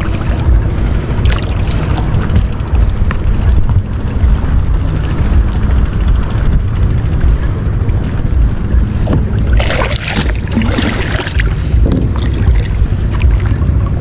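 Strong wind buffeting the microphone over sea water, a loud steady low rumble, with a stretch of rougher water noise about ten seconds in.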